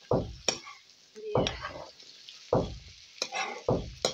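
Vegetables frying with a sizzle in a black wok while a metal spatula stirs and scrapes them about once a second.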